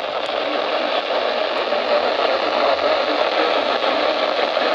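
Steady hiss of radio static from a weather-radio broadcast, the signal buried in noise with no clear speech.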